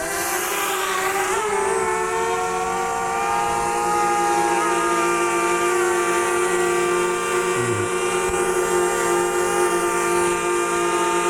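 DJI Mavic Mini quadcopter hovering close by, its propellers giving a steady multi-toned whine. The pitch wavers for about the first second and a half, then holds even.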